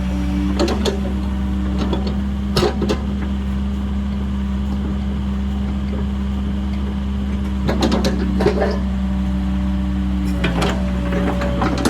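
Cat 308 excavator's diesel engine running steadily, with a few short knocks and clanks about a second in, near three seconds, around eight seconds and near the end.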